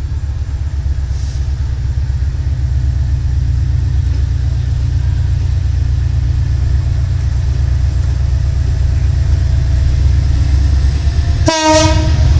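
Several GE CC 205 diesel-electric locomotives heading an empty coal train, pulling away under power with a deep, steady engine drone that grows louder as they approach. Near the end the lead locomotive gives one short horn blast.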